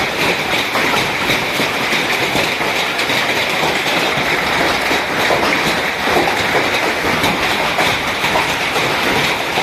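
Hailstorm with heavy rain: a dense, steady clatter of countless hailstones and raindrops striking hard surfaces.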